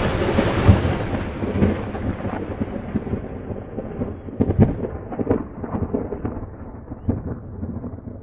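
Logo-intro sound effect: the long rumbling tail of a deep boom, with scattered crackles, slowly fading away.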